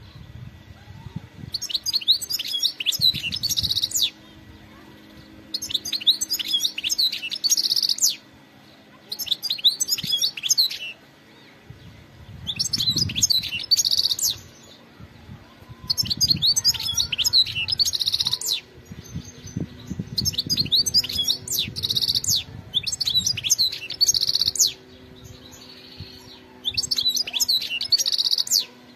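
European goldfinch singing in repeated phrases of rapid, high twittering and tinkling notes. There are eight phrases, each about two seconds long, with short pauses between them.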